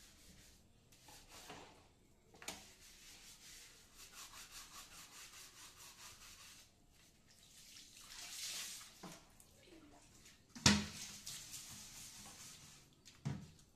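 Hand scrubbing the base of a ceramic toilet with a cleaning pad or brush: quick rhythmic rubbing strokes, about four or five a second, then about a second of louder hissing. A sharp knock, the loudest sound, comes about two-thirds of the way through, and a smaller knock near the end.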